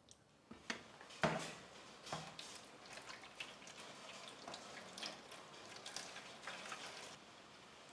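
Liquid agar-agar jelly mixture pouring from a pot into a square stainless steel cake tin, splashing and dripping irregularly, with one louder knock about a second in.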